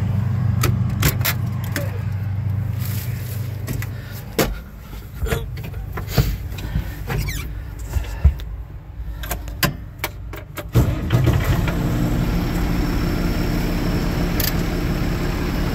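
Farm machine engine running steadily, heard from the cab. About four seconds in it drops away to a quieter stretch of scattered clicks and knocks, and about eleven seconds in a steady engine drone comes back sharply.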